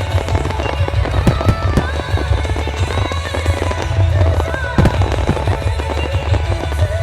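Aerial fireworks display going off in rapid succession: many quick bursts and crackles over a continuous low rumble, with music playing along.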